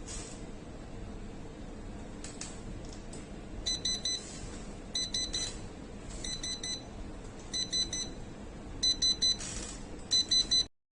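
Electronic alarm clock of an LED desk lamp beeping: groups of about four quick, high-pitched beeps, repeating a little more than once a second, beginning a few seconds in and stopping suddenly near the end.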